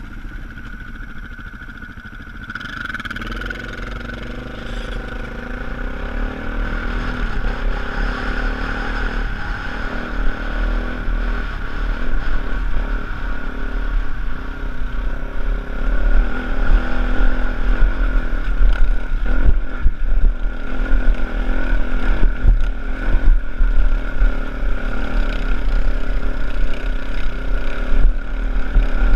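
Dirt bike engine heard from the rider's own camera, pulling away and running under load over a rough trail, growing steadily louder as the bike picks up speed. A low rumble of wind on the microphone and bumps comes with it.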